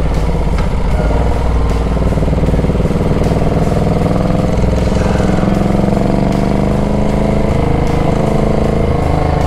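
Moto Guzzi transverse V-twin motorcycle engine running under way, its pitch climbing slowly as the bike gathers speed, then levelling off.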